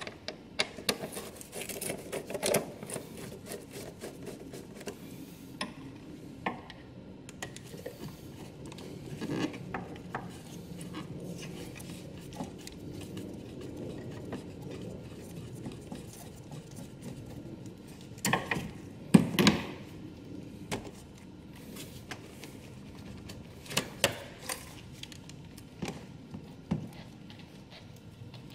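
Hands and a hand tool working on a car's plastic and rubber air intake duct and hose clamp in the engine bay. Irregular clicks, scrapes and rubbing go on throughout, with a few louder knocks about two-thirds of the way through.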